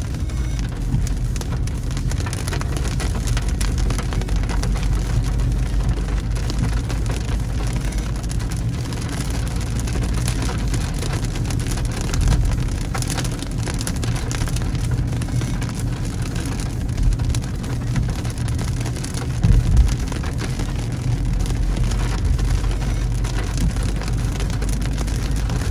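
Rain pattering on a moving car's windshield and body, heard from inside the cabin, over a steady low road and engine rumble, with a few brief louder low bumps.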